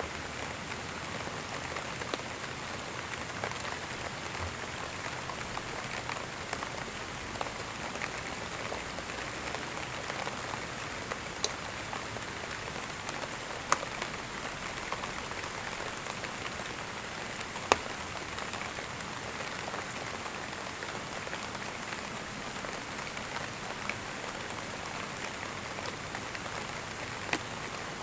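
Steady rain falling on a surface, an even hiss with scattered louder drops ticking now and then.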